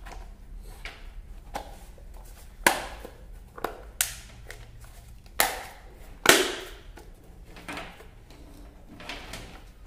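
Sharp plastic clicks and knocks at irregular intervals, four or five of them loud, as the white plastic motor-and-pump housing of a Kärcher K2 pressure washer is handled and worked on by hand.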